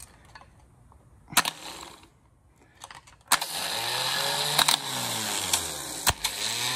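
Automotive starter motor bench-tested in a vise, its solenoid energized by a screwdriver bridging the ignition terminal to the positive post. After a single click, it kicks in about three seconds in and spins freely with a loud whirring run. Its pitch wavers up and down, and sharp clicks come through as it runs.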